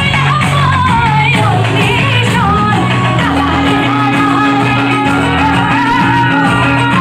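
Live music: a mandolin and a singing voice carrying a wavering melody over steady held low notes.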